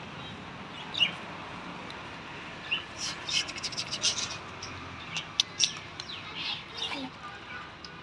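Budgerigars chirping: scattered short, high chirps, most of them packed together in the middle of the stretch.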